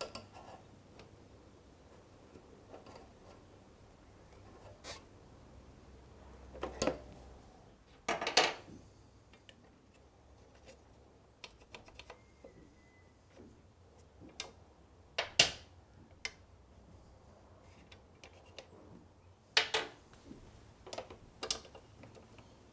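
Scattered metal clicks, knocks and scrapes with quiet gaps between them, as a circlip tool and brake pads are worked against a motorcycle's radial-mount front brake caliper while the caliper pistons are pushed back and new pads are fitted. The loudest knocks come about a third of the way in, just after halfway, and near the end.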